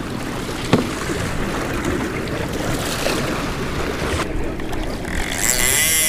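Wind on the microphone and sea water sloshing along the side of a small fishing boat, with one sharp knock under a second in. Near the end a wavering pitched hum with a high hiss comes in.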